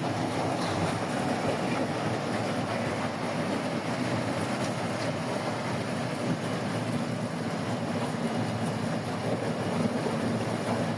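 Harvesting machine running steadily with a constant engine drone.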